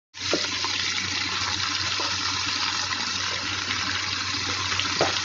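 Raw country chicken pieces sizzling in hot sesame oil with fennel seeds and curry leaves in a pressure cooker: a dense, steady hiss that starts suddenly, with a few faint clicks as pieces drop in.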